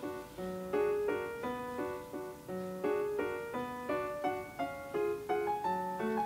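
Background music: a light piano tune, a steady run of single notes.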